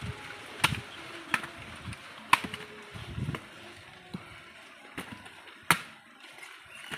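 Machete chopping into tender palmyra palm fruits (nungu): about five sharp blade strikes at uneven intervals, with fainter knocks between them.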